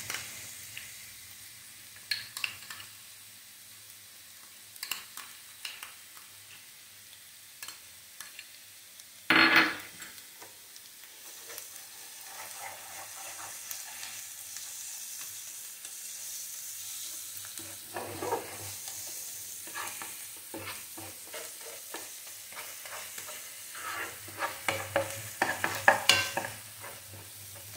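Chopped onion and green chilli frying in a nonstick pan with chilli paste just added, sizzling steadily while a steel spoon stirs and scrapes the pan. Scattered scrapes and clinks run through it, with a louder stroke about nine seconds in and a busy run of stirring near the end.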